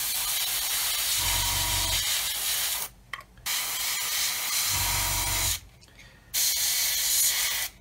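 Iwata airbrush with a 0.3 mm needle spraying thinned paint: a steady hiss of air and paint, broken twice by short pauses a few seconds apart.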